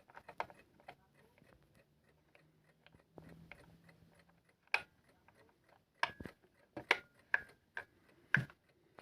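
Buttons on a Telefunken TF-158 digital alarm clock radio being pressed: a run of irregular sharp clicks, several of them with a brief high beep.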